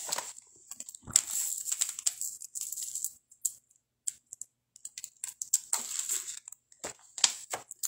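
A string of meditation beads clicking and rattling as it is picked up and handled, with irregular small clicks and rustles.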